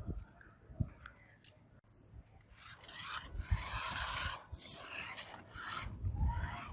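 Toy RC rock crawler driving over a rough homemade track: rasping scraping and rubbing that grows louder a few seconds in, with a few low knocks.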